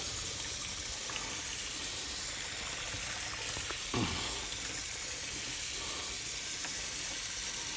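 Hot tap water running steadily from the kitchen faucet onto the lid of a pressure cooker in a stainless steel sink, cooling the cooker so its pressure drops.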